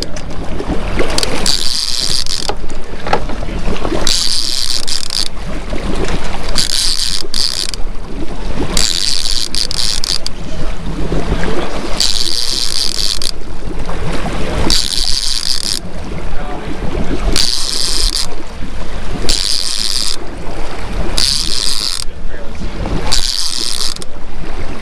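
Fishing reel being cranked to wind in line against a hooked fish, with a ratcheting mechanical whir in short spells of about a second and brief pauses between. The boat's engine hums steadily underneath.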